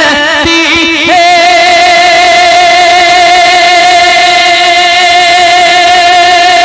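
Male voice singing a naat, wavering through a short melodic run and then holding one long, steady high note from about a second in.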